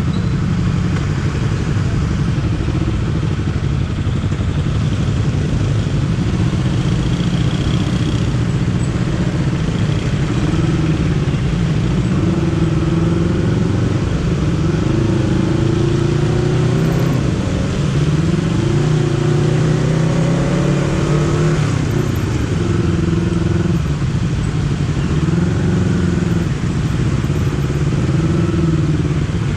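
Honda CBR250RR motorcycle engine under way, its pitch repeatedly rising and falling as the throttle is opened and closed.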